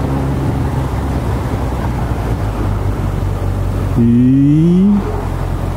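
Kawasaki Ninja ZX-14R's inline-four engine, fitted with a Yoshimura slip-on exhaust, running steadily on the move under wind and road noise. About four seconds in it revs up with a rising pitch for about a second, then drops off suddenly.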